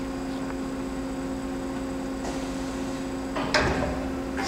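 Hyundai WIA F400 vertical machining center running with a steady mechanical hum after a tool change. A knock comes about three and a half seconds in, after which the hum's pitch shifts.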